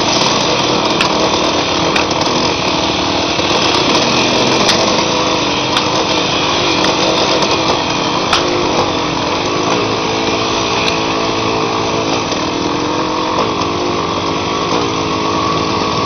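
Honda XR100 dirt bike's small single-cylinder four-stroke engine running close to the microphone, its revs rising and falling over the second half, with a few scattered knocks from the trail.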